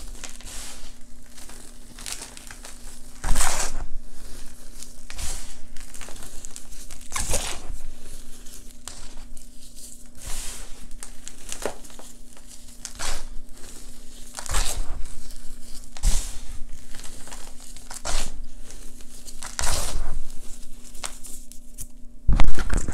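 Hands crushing and squeezing reformed gym chalk into powder: dry, crisp crunching and crumbling, with louder squeezes every few seconds and the loudest near the end.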